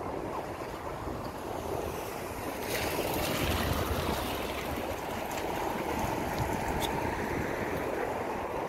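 City street ambience: a steady rush of traffic noise, swelling for a couple of seconds about three seconds in.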